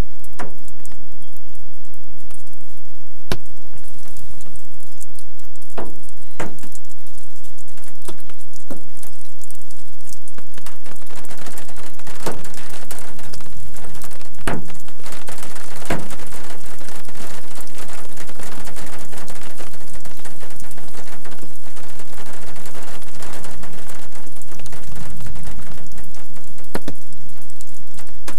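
Raindrops striking a stationary car's windshield and body, heard from inside the cabin: a few scattered sharp ticks at first, thickening into steadier patter about halfway through as the rain picks up.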